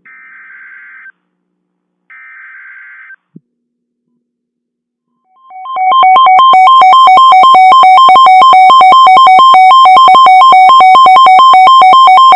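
Emergency Alert System SAME header: two short buzzy data bursts, each about a second long and a second apart, that encode a snow squall warning. About five and a half seconds in, a loud two-tone EAS attention signal starts and holds steady.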